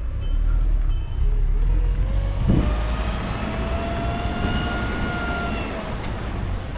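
A car driving: a steady low rumble of engine and road, with a whine that rises in pitch from about a second and a half in and fades out near the end.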